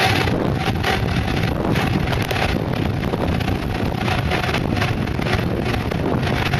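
Wind buffeting the microphone over the steady rumble of mountainboard wheels rolling fast down asphalt, the wind coming in gusts.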